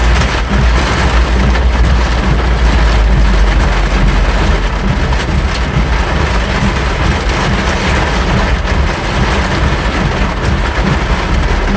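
Torrential rain drumming on a car's roof and windscreen, heard from inside the cabin as the car drives through the storm: a loud, dense, steady noise with a strong low rumble.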